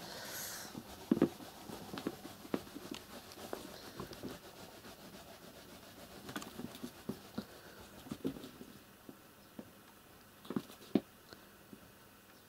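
Kitten scuffling and pawing at a cloth rag wrapped around a wooden chair leg on a carpet: scattered soft taps, scratches and rubbing, with a few sharper knocks about a second in and again near the end.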